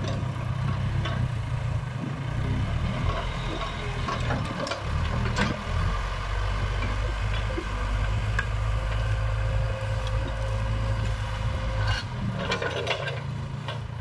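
Case 580 Super K backhoe loader's diesel engine running steadily as the machine drives and manoeuvres, with a few sharp clicks and knocks mixed in.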